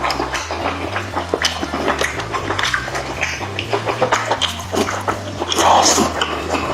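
Close chewing and lip-smacking while eating spicy chicken, a quick run of small clicks and smacks with a louder smack about five and a half seconds in. A low bass line runs underneath.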